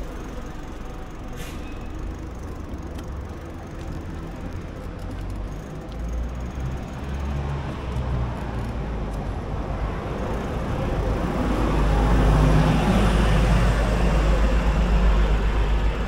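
Street ambience heard from a moving bicycle: a low rumble throughout, and a motor vehicle's noise that grows and passes close, loudest near the end.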